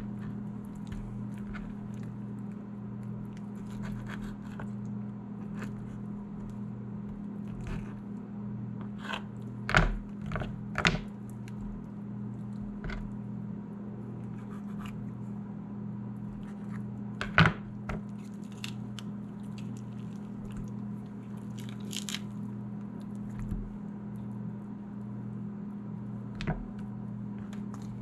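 Scattered crunches and sharp snaps from a paring knife cutting through a ruffed grouse carcass and its thigh joint being cracked, on a plastic cutting board, over a steady low electrical hum.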